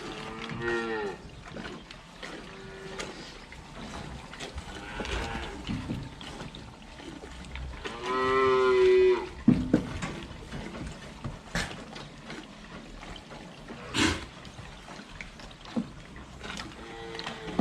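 Dairy cows mooing: a short call at the start, a long loud call about eight seconds in, and another near the end, with a few sharp knocks in between.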